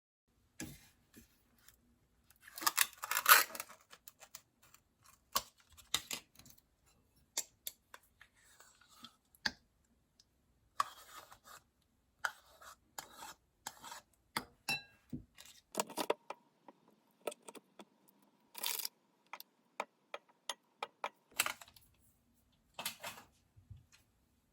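Small objects being handled: irregular clicks, taps and light rustling, with a louder burst of rustling about three seconds in.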